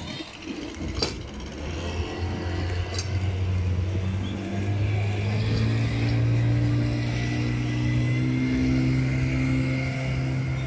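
A boat's outboard motor running, its pitch and loudness rising steadily over several seconds as the boat speeds up, then holding. A sharp knock about a second in.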